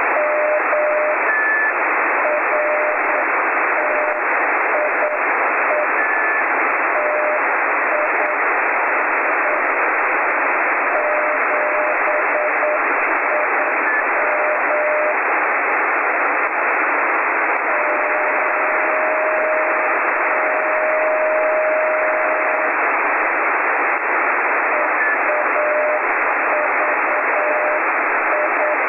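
Weak Morse code (CW) from the SV2AHT amateur radio beacon on 28231.6 kHz in the 10-metre band, received on a Yaesu FT-817. A single keyed tone sends dots and dashes at about 7 to 9 words per minute under steady, loud receiver hiss. In the second half the tone holds unbroken for about five seconds.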